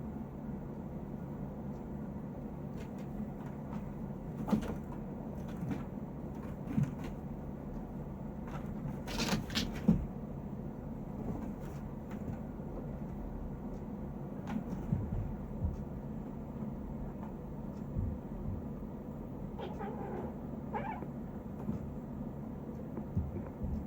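Cats moving about: scattered light knocks and rustles with a louder scuffle about nine seconds in. A short cat mew comes near the end, all over a steady low hum.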